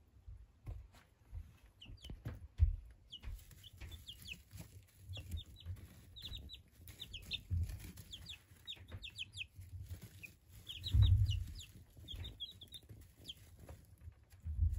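Month-old ISA Brown chicks peeping: many short, falling chirps in quick succession from a few seconds in. Scattered clicks and low thumps run underneath, and a dull thump about eleven seconds in is the loudest sound.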